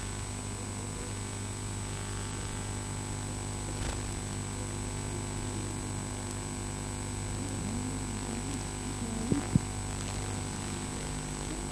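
Steady electrical hum and hiss of an old videotape soundtrack. Faint wavering tones come in near the end, with a couple of sharp clicks.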